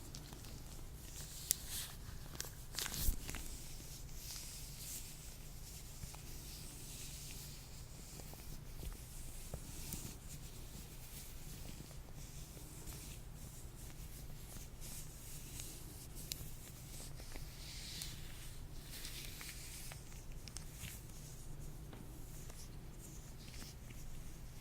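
Latex gloves rubbed and handled close to the microphone: soft, scattered rustling and squeaking, with two sharp clicks in the first few seconds.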